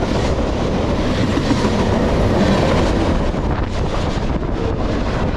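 Freight cars of a train rolling past at track speed: a steady, loud rumble of steel wheels on rail, with scattered clicks as the wheels run over rail joints.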